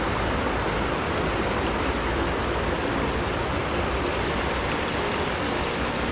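Small rocky creek running over shallow riffles: a steady rush of water.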